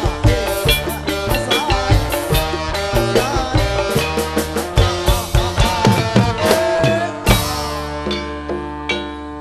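Music accompanying a Buto Gedrug folk dance: drums beat a fast, steady rhythm under held and bending melody notes. About seven seconds in a loud strike lands, then the drumming drops back and the music gets quieter.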